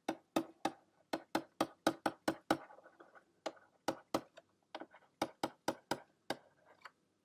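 Stylus tip clicking and tapping on a drawing tablet as block capital letters are written by hand: about twenty short, irregular clicks, roughly three a second, with a brief pause a little before halfway.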